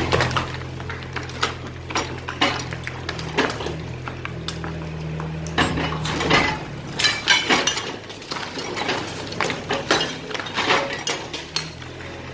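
Excavator's diesel engine running with a low drone while broken concrete and brick rubble clatters and clinks in many quick knocks. The engine drone fades in the middle and comes back near the end.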